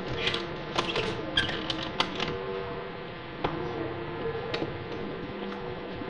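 Sharp clicks and taps from a lever door handle and its lock being worked by hand, a quick run of them in the first two seconds or so and then a few scattered ones.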